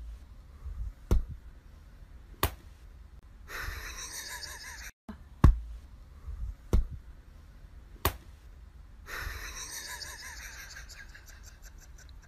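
Five sharp knocks or taps, about one every second and a quarter, with soft breathy rustling between them.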